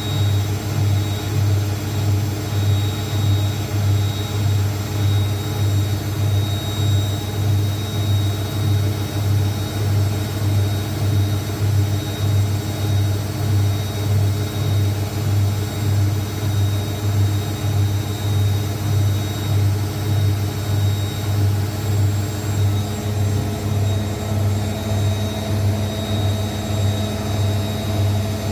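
Zanussi ZWSE680V front-loading washing machine spinning at speed in the final spin of a cotton cycle, its drum running on freshly repaired shock absorbers. A steady motor hum that pulses evenly about twice a second, with fainter steady whining tones above it.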